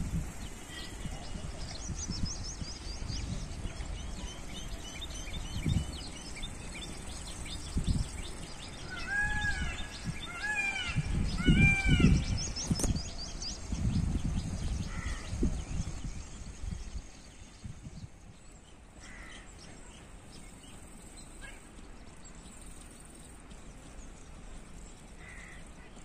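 Birds calling: a run of about four loud, arched calls about ten seconds in, over scattered high chirping of small birds, with a few single calls later on. Low rumbling comes and goes in the first half and dies away after about seventeen seconds.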